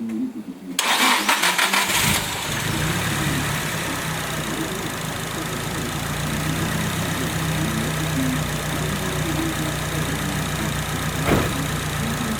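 Nissan SR20DET turbocharged 2.0-litre four-cylinder engine cranked on the starter motor, catching about two seconds in and settling into a steady idle. A single short tick is heard near the end.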